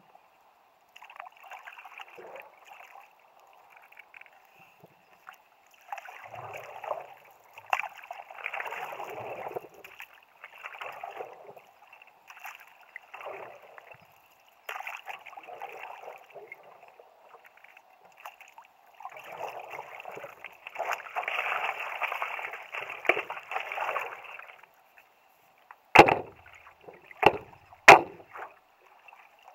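Stand-up paddle strokes: the blade dipping and pulling through river water, sloshing and splashing in runs with quieter gaps between. Near the end, three sharp knocks about a second apart.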